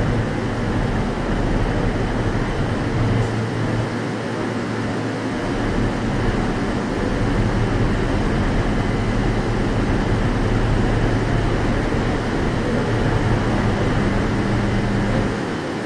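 Aoimori Railway 701 series electric train standing at the platform, its onboard equipment giving a steady low hum over an even rushing noise.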